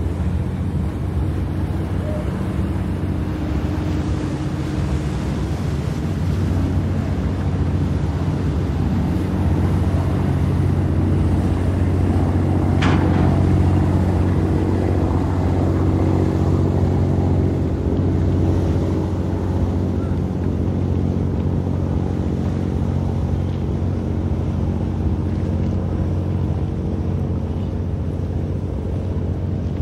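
Harbour shoreside ambience dominated by the steady low hum of a passing boat's engine, growing louder through the middle and easing off again, over a wash of lapping water and wind. One brief sharp sound cuts through about halfway.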